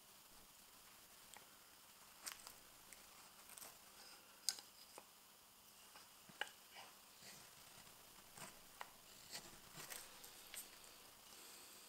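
Faint, irregular knife strokes: a sloyd carving knife shaving fresh maple on a spoon's handle, short slicing ticks and scrapes as shavings come off, the sharpest click about four and a half seconds in.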